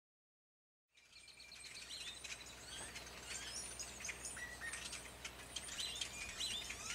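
Many small birds chirping and twittering together, fading in about a second in out of complete silence, with a faint steady low hum beneath.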